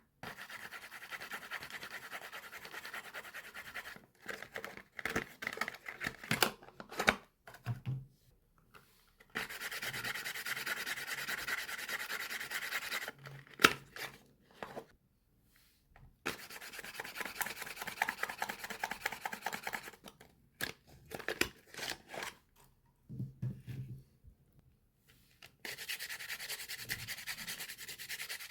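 Soap bars being unpacked by hand: long stretches of steady scratchy rubbing on the packaging, broken by clusters of sharp clicks and short pauses.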